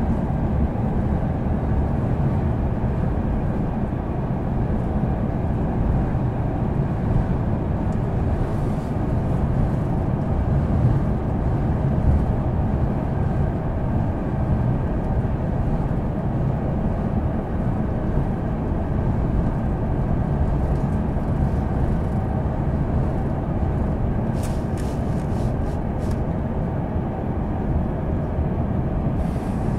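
Steady running noise of the Marine Liner electric train heard from inside the passenger car: an even low rumble of wheels on rails. There are a few brief ticks near the end.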